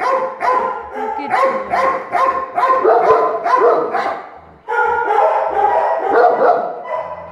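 Several kennelled dogs barking loudly and continuously, the barks overlapping at about three a second, with a brief lull about four and a half seconds in.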